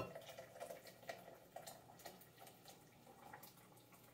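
Thickened sauce trickling and dripping from a tilted pot into a glass container, faint, with a light clink at the start and the drips thinning out toward the end.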